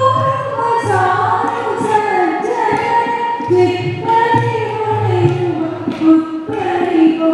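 Music: singing voices carry a melody of long held notes that slide between pitches, with a low pulsing beat underneath.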